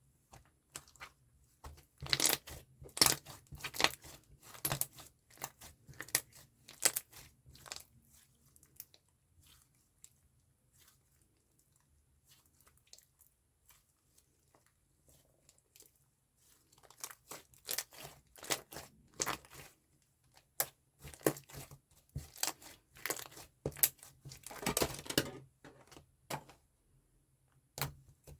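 Slime being played with by hand, giving clusters of sharp crackling and popping clicks. It goes nearly quiet for several seconds in the middle, then the clicking picks up again.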